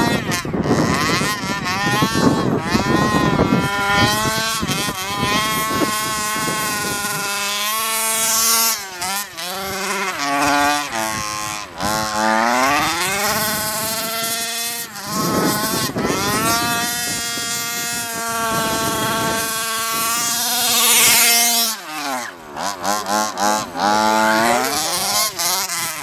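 Small two-stroke petrol engine of a radio-controlled baja buggy revving up and down again and again as it is driven hard, its pitch climbing on the throttle and dropping when it eases off.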